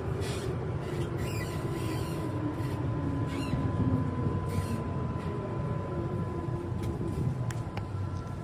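Inside a metro train car while it runs: a steady low rumble with a motor whine that falls in pitch over the first few seconds, as a train's does when it slows, and a faint thin steady tone above it.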